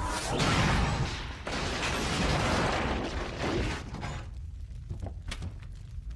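Film sound effects of a metal refrigerator crashing onto the ground and tumbling through dirt: loud, noisy crashing and scraping for the first few seconds, then quieter with a few separate knocks as it settles.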